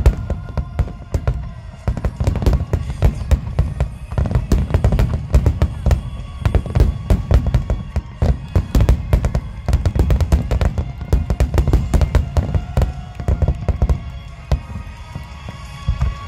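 A dense barrage of aerial firework shells bursting in rapid succession, loud bangs overlapping almost continuously, thinning out near the end.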